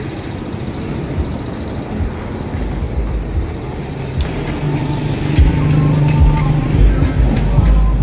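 A motor vehicle's engine rumbling as it passes, getting louder over the second half, with a few knocks from a heavy truck tire being handled on concrete.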